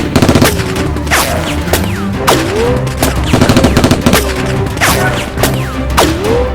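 Rapid bursts of gunfire sound effects over driving action music, with several swooping whoosh effects that sweep down in pitch and curl back up.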